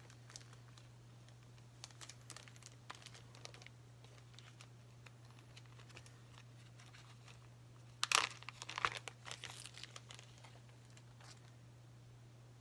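Crinkling, rustling handling noises from jig-making materials being handled: scattered light crackles about two seconds in, then a louder burst of crinkling about eight seconds in that lasts a couple of seconds. A steady low hum runs underneath.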